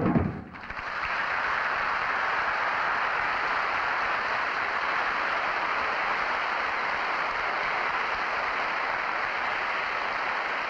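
Studio audience applauding steadily after the song's last note, which sounds briefly at the start; the clapping rises within the first second and holds at an even level.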